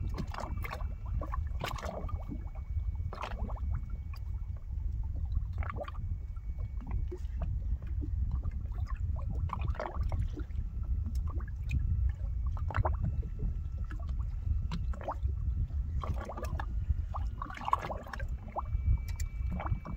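Small waves lapping and slapping against the hull of a boat adrift, short irregular splashes over a steady low rumble.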